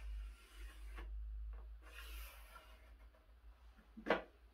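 Pencil scratching lines onto an MDF board, drawn along a small spirit level, in a few soft strokes. A sharp knock about four seconds in, as the level is handled.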